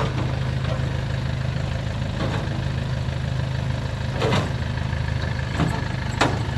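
Chinese New World 88 (Ruilong) combine harvester's engine running steadily with a deep hum, with a couple of short knocks or clatters about four and six seconds in.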